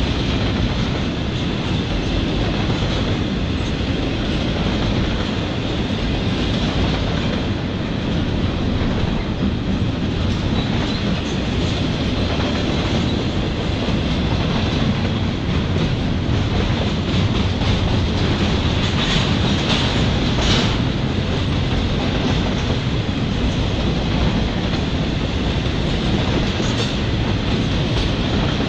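CSX double-stack intermodal freight train's container-laden well cars rolling steadily past, with a continuous rumble and wheels clacking over the rails.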